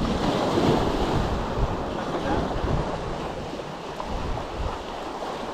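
Small waves breaking and washing up over a beach of rounded cobbles, with wind buffeting the microphone.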